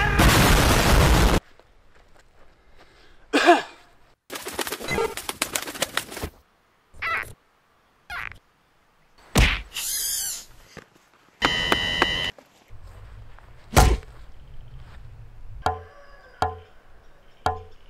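A string of comedy sound effects: a loud rushing burst for about the first second and a half, then scattered thuds and whooshes, and near the end a few short plucked notes.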